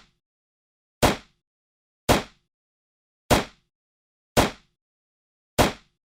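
9mm pistol firing single shots, five in all at a steady pace of about one a second. Each is a sharp crack that dies away quickly, with silence between shots.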